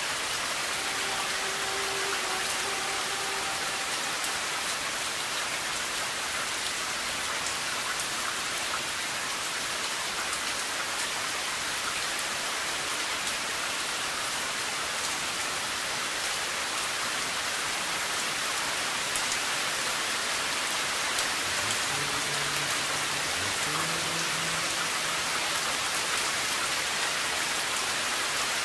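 Heavy rain pouring down, a steady dense hiss of drops.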